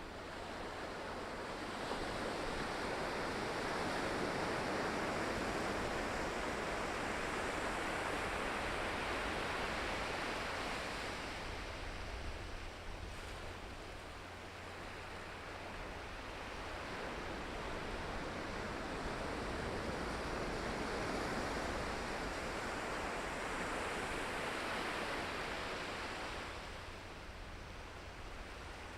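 Ocean waves breaking and washing on the shore: two long surges of surf, each building over a few seconds and easing away, with a lull between them.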